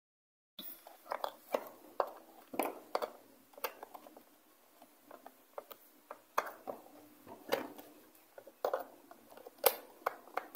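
Screwdriver driving the screws into a Bluetooth speaker's plastic casing, with irregular small clicks and ticks of the tool and housing. The clicks start about half a second in.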